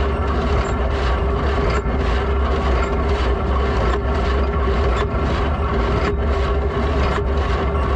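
Ford 3000 tractor's three-cylinder engine running steadily while pulling a New Holland 273 square baler through hay, with a regular pulse about once a second.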